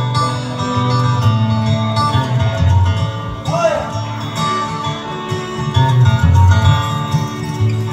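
Fiddle and acoustic guitar playing a bluegrass instrumental break live, the fiddle's drawn melody over the guitar's strummed chords and bass notes.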